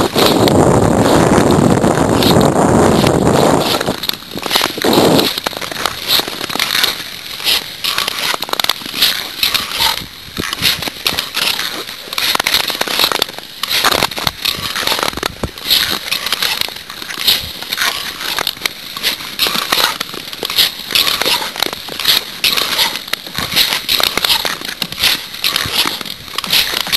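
Ice skates striding and gliding over clear black lake ice, with an irregular run of crackling clicks and scrapes. A loud rushing noise fills the first four seconds and comes back briefly about five seconds in.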